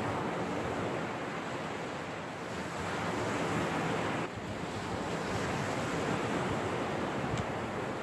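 Sea surf washing and breaking on a sandy shore as a steady rush, with wind blowing across the microphone.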